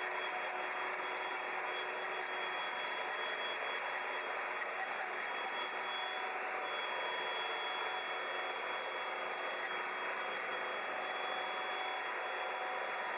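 Table saw running steadily with a constant whine while its blade takes small cuts off the corners of a square wood blank turned on a circle-cutting sled.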